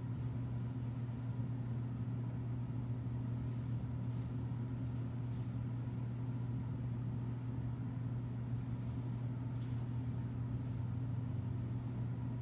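A steady low hum with faint hiss over it, unchanging, with no distinct knocks or voices.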